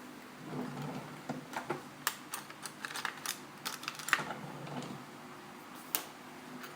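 Small Phillips screwdriver working tiny screws out of an iPhone 4S: irregular light clicks and taps of metal on metal with some soft scraping, then a single click about six seconds in.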